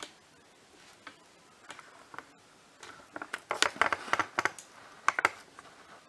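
Light, irregular clicks and taps of handling, a few early and then a quick cluster about three to five seconds in.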